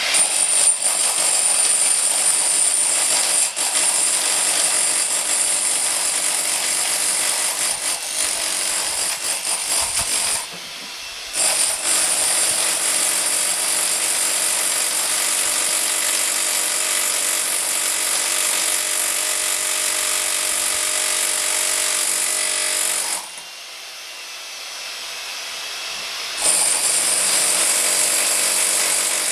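A handheld electric power tool running hard into a wall, cutting or breaking it, with a steady hum and high whine. It runs in three long stretches, stopping briefly about ten seconds in and again for about three seconds near the end.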